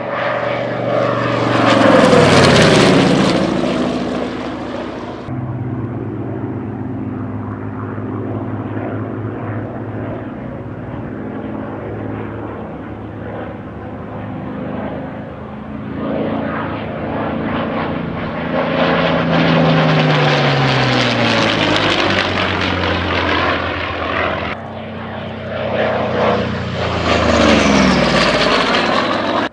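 Low flybys of WWII propeller fighters, edited back to back: a Mitsubishi A6M Zero, then another single-engine fighter, then an F4U Corsair with its Pratt & Whitney R-2800 radial engine. Each pass is a loud engine drone whose pitch falls as the plane goes by, loudest about two seconds in, around twenty seconds in and near the end, with abrupt changes in sound where the clips are cut.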